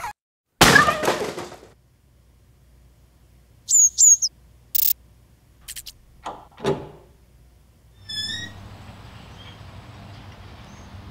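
Cartoon sound effects: a loud crash that rings out for about a second, then two short high bird chirps. A brief burst of hiss follows, then clicks and a thump, and a short tweet before a low steady hum.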